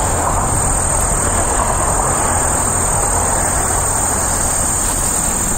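Steady high-pitched chorus of crickets or other singing insects, over a steady low rumble.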